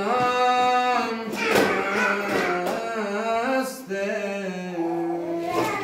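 A voice singing a slow melody, holding long notes with wavering, ornamented bends in pitch, with a short break about four seconds in before the next phrase.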